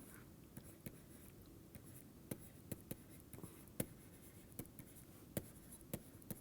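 Faint, irregular taps and light scratches of a pen writing.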